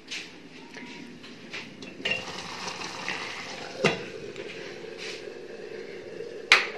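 Steady hiss of a saucepan simmering on a lit gas burner, with a metal pot lid clinking against the pan several times. A louder sharp click comes near the end, as a cooker control knob is turned.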